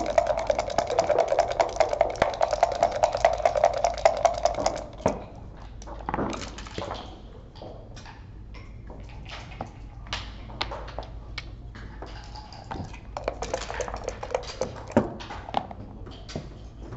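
Backgammon dice rattling rapidly in a dice cup for about five seconds, followed by scattered sharp clacks of dice landing on the board and checkers being set down. A second, shorter rattle of the cup comes near the end.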